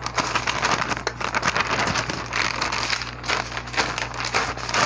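Sheets of paper rustling and crinkling as they are handled and shuffled close to the microphone, an irregular run of rapid crackles.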